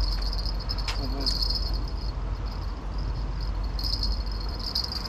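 Insects chirping in a steady high-pitched chorus, over a low rumble.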